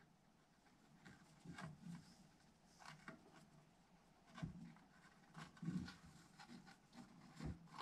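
Very faint, scattered rustling and soft ticks of a shooting string being pulled over and under the mesh of a Nike CEO 2 lacrosse head by hand.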